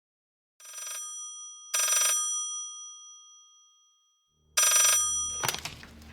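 Old-style telephone bell ringing in three short bursts, the last two louder, each leaving a fading ring. A click follows near the end, as the receiver is picked up.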